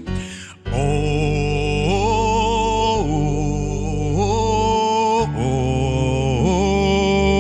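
Worship music: sustained low keyboard-style chords under a melodic line of long held notes, each sliding up into its pitch. The music drops away briefly just after the start and comes back in under a second in.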